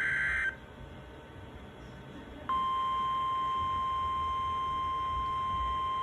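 NOAA weather radio alert sequence from an iRonsnow IS-399 receiver's speaker. A buzzing SAME digital header burst cuts off about half a second in. About two seconds later the steady 1050 Hz warning alarm tone starts and holds, announcing a new severe thunderstorm warning.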